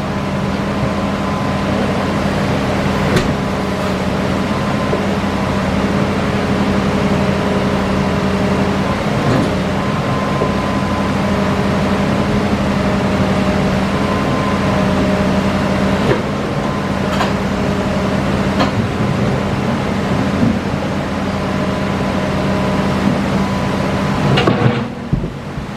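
Hitachi Zaxis excavator's diesel engine running steadily with a faint whine, with several sharp knocks along the way while it loads rock into a dump truck.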